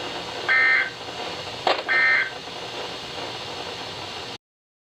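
Emergency Alert System end-of-message data bursts: two short, buzzy digital tone bursts about a second and a half apart, over steady radio hiss, with a click just before the second burst. The sound cuts off suddenly about four seconds in, which marks the end of the alert.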